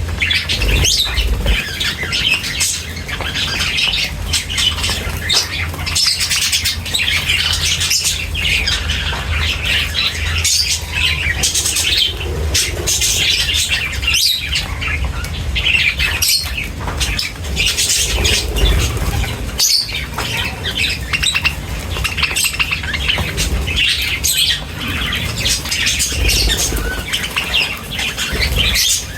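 A flock of birds chirping, many calls overlapping in a dense, continuous chatter.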